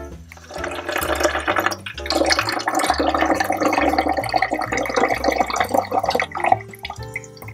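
Water running from a miniature kitchen tap and splashing into a small stainless-steel sink as a little glass cup is rinsed and emptied. The water starts about half a second in and stops about six and a half seconds in.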